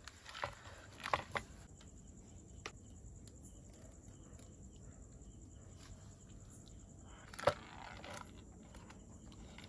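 A few faint clicks and taps of handling, the sharpest and loudest about seven and a half seconds in, over a quiet steady background.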